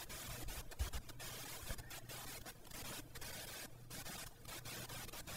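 Faint room tone: a steady microphone hiss with a low, even hum underneath and no distinct sound event.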